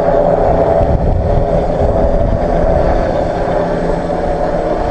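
Tricopter's three brushless motors spinning 10x4.5 propellers in flight, a steady hum over a buffeting low rumble.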